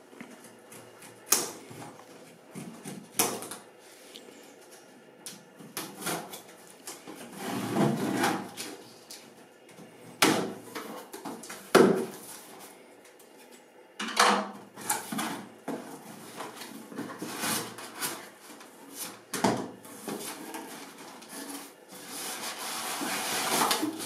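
A cardboard appliance box being unpacked by hand: scissors cutting the plastic packing straps, then the flaps pulled open and the cardboard scraped and handled. There are about half a dozen sharp, irregular snaps, with scraping between them and a longer rustle building near the end.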